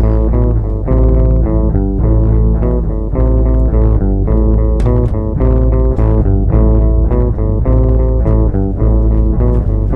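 Music: plucked guitar over a bass guitar line, with notes changing several times a second.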